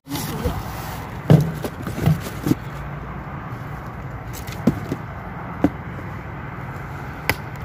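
Steady low outdoor rumble with a few sharp knocks and clicks scattered through it, the loudest about a second and a half in.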